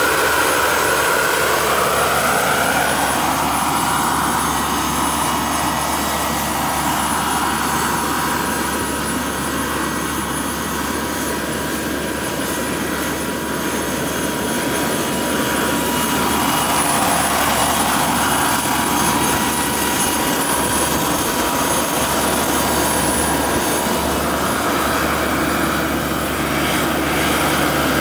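Jakadofsky 5000 model turbine engine and the tandem rotors of a scale RC Chinook helicopter in low flight: a steady high-pitched turbine whistle over the rushing noise of the rotor blades, the rushing swelling and fading as the helicopter moves about.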